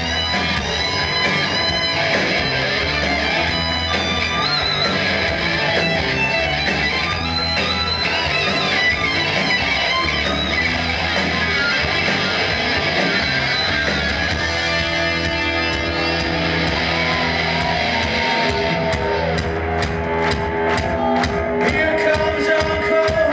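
Live rock band playing loud: a lead electric guitar solos with bent, wavering notes over distorted rhythm guitar, bass and drums. In the last few seconds sharp drum hits stand out.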